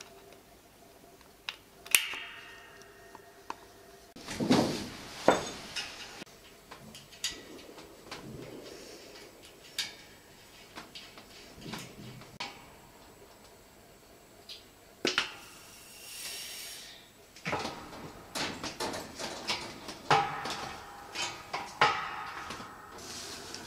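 Hand assembly sounds: scattered small clicks, taps and knocks of plastic and metal parts being handled and fitted onto the power hammer's valve electronics box and air-hose bracket. A brief hiss lasting about a second and a half comes about two-thirds of the way through.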